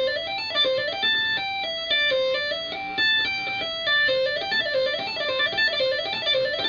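Electric guitar played with two-hand tapping: a fast, unbroken legato run of notes on the C pentatonic scale, repeating up-and-down figures that move along the neck.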